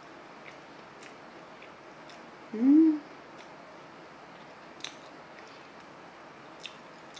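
A person chewing a mouthful of Spam musubi (rice and Spam wrapped in seaweed), with sparse faint crisp mouth clicks. About two and a half seconds in comes a short "mm" hum that rises in pitch.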